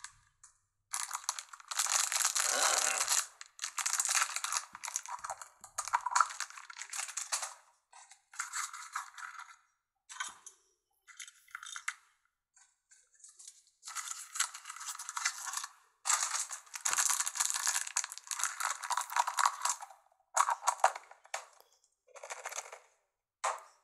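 Foil wrapper of a Kinder Surprise chocolate egg crinkling in bursts as it is unwrapped by hand, with short pauses between handlings.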